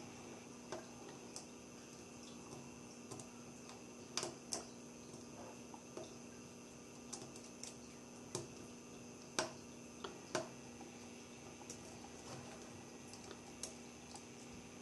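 Irregular small clicks and taps of a precision Phillips screwdriver and tiny screws against the metal shield inside an iPhone 5 while the shield screws are being backed out, over a faint steady hum.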